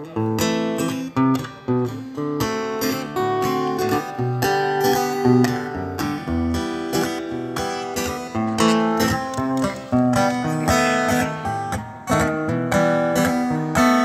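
Acoustic guitar strummed in a steady rhythm of chords: the instrumental introduction to a song, before the voice comes in.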